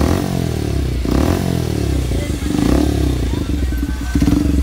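Bajaj Pulsar 125's single-cylinder engine revved through an aftermarket Akrapovic-branded slip-on silencer, the exhaust note rising and falling in pitch with each blip of the throttle.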